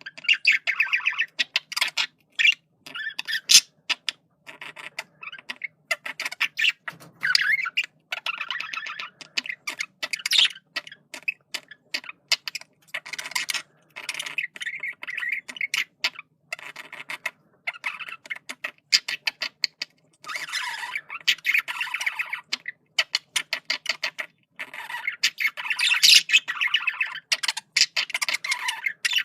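Male budgerigar warbling and chattering: a fast, choppy run of chirps, squawks and clicks in bursts, broken by short pauses.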